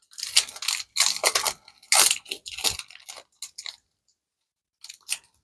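Foil trading-card booster pack wrapper crinkling and tearing as it is ripped open by hand, a run of rustling crackles for about four seconds, then a couple of faint ticks near the end.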